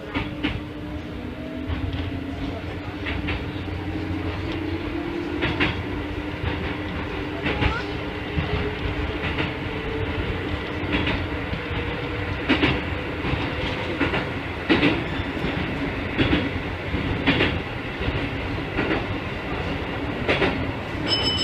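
Keikyu 1500 series electric train running, heard from inside the driver's cab: a motor whine rises in pitch over the first few seconds and fades away, while the wheels click over rail joints about once every second or so.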